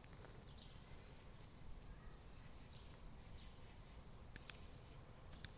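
Near silence: faint outdoor ambience with a low rumble and a few soft ticks near the end.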